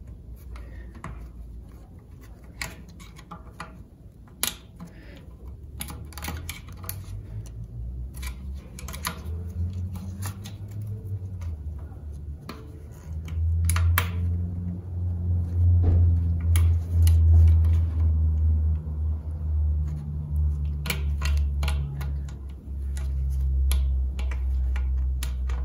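Scattered light metallic clicks and taps of a tool and parts against the aluminium transmission case as a servo's snap ring is worked out of its groove in a Chrysler A-904 automatic transmission. Under the clicks runs a low rumble that gets louder about halfway through.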